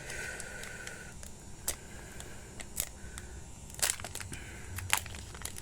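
A handful of light clicks and taps from handling trading cards and booster packs, spread out over a faint background.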